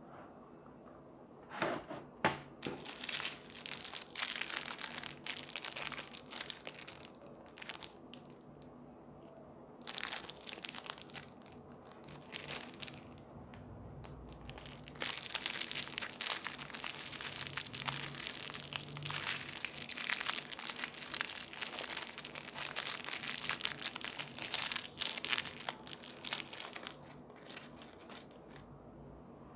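Thin clear plastic bag holding small metal mounting clips, crinkled in the fingers and worked open by hand, in long stretches of crackling with short pauses between them. A couple of sharper crackles come about two seconds in.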